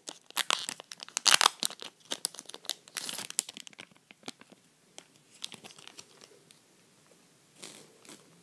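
Pokémon card booster pack wrapper being torn open and crinkled. There is dense crackling for about four seconds, loudest about a second in and again at three seconds, then a few soft rustles and clicks.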